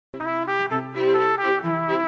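Brass music: trumpets and trombones playing a melody in held chords that change every fraction of a second.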